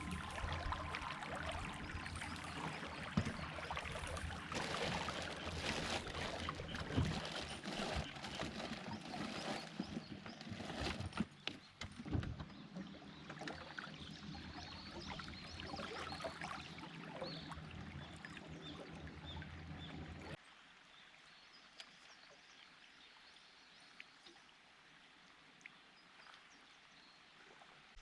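Water splashing and trickling against a small fishing boat, with a steady low hum underneath. About twenty seconds in it cuts off abruptly, leaving a faint outdoor background.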